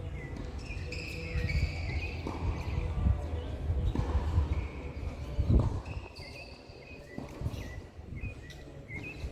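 Outdoor ambience: wind rumbling on the microphone, with high, steady held calls in the background and a few sharp knocks, the loudest about five and a half seconds in.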